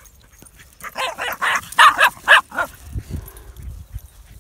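A dog barking, about six quick barks in a row, the loudest sound here.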